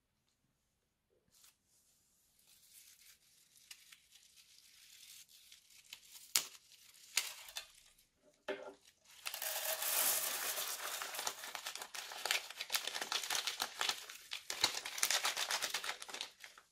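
A clear plastic piping bag crinkling as it is handled and squeezed, emptying foam beads and sequins onto slime. The crinkling builds slowly over the first several seconds and is densest and loudest from about nine seconds in.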